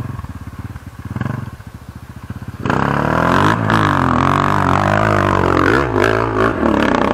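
Dirt bike engine running at low revs, then, about three seconds in, revving hard under load as the bike climbs a slope close by, its pitch wavering up and down with the throttle.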